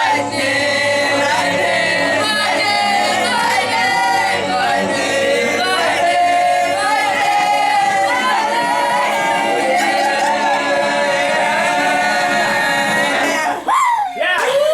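Music: several voices singing together in held notes that slide in pitch, breaking off near the end.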